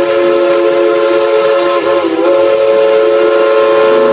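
Steam locomotive's chime whistle blowing one long, loud multi-note blast, held steady, with a brief sag in pitch about two seconds in.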